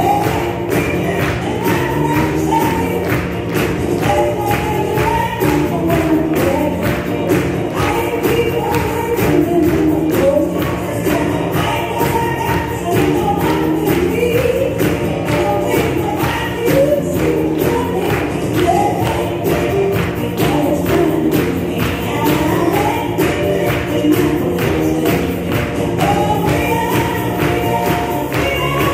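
Music with a choir singing over a steady beat.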